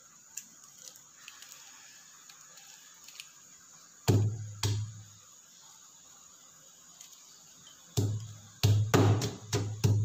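Pestle pounding garlic and red chillies in a heavy stone mortar, each stroke a dull thud: two strokes about four seconds in, then a quick run of thuds over the last two seconds.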